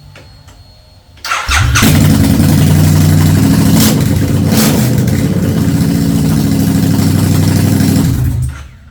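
Supercharged bobber motorcycle engine running on open headers with its exhaust removed. It is started about a second in, runs loud and steady for about seven seconds, and is shut off near the end.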